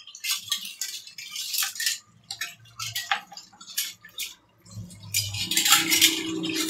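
Light clinks and clicks of kitchenware being handled, turning into a busier, louder clatter with a low hum under it from about five seconds in.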